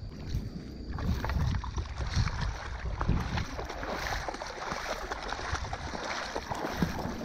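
Shallow water splashing and sloshing around legs as a person wades through it, in irregular strokes that grow busier about a second in.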